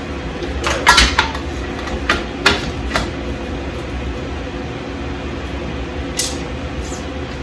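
Handling noise: several short knocks and taps, clustered in the first three seconds with two fainter ones later, over a steady low machine hum.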